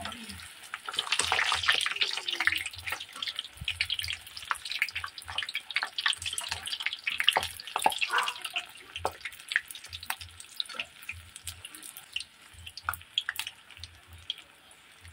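Turon deep-frying in hot oil in a wok: the oil sizzles and crackles with many small pops. It is loudest in the first few seconds and settles lower toward the end.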